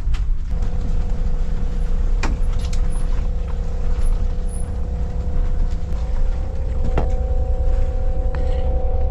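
Bus driving over a rough, potholed road with a heavy low rumble and a steady whine. Sharp knocks come at about two seconds in and again near seven seconds in.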